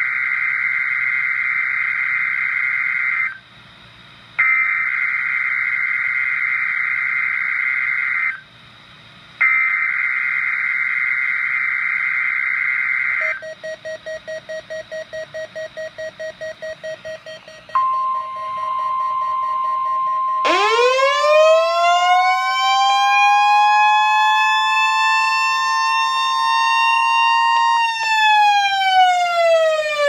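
NOAA Weather Radio's SAME digital alert header screeches three times, each burst about three seconds long with a short gap between. Rapid beeping follows, then the steady 1050 Hz weather-radio alert tone. A few seconds into the tone, the weather radio receiver's electronic siren alarm rises, holds and falls away near the end, set off by the Required Weekly Test.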